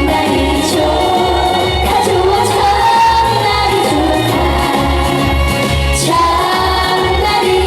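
Live song: a female singer sings an upbeat trot song over an amplified backing track with a steady bass beat.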